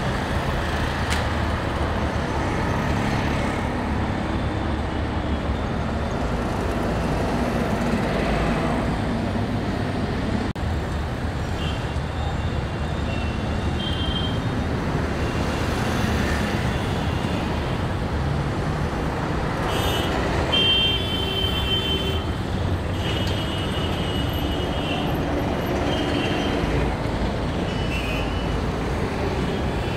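Heavy road traffic passing steadily: cars and trucks with engine and tyre noise, and vehicle horns honking several times in the second half.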